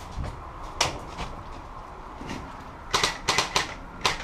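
Airsoft guns firing: a single sharp shot about a second in, then a quick string of about five shots around three seconds in, and one more near the end.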